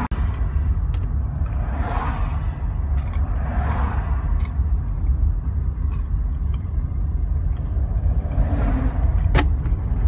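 Steady low rumble of a car heard from inside the cabin, with a few soft rustles and two sharp clicks, one about a second in and one near the end.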